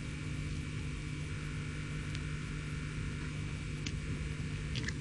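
Steady low electrical hum with background hiss, with a few faint clicks.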